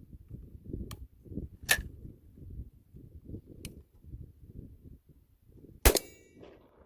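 A single-shot shotgun fires once near the end, with a ringing tail, the loudest sound here. A few sharp clicks come before it.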